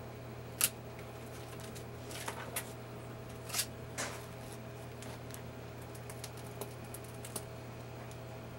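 A few light clicks and taps from metal cake-decorating tools being handled as a buttercream flower is set on a cake, over a steady low hum. The sharpest click comes about half a second in, more follow around two to four seconds in, then fainter ticks.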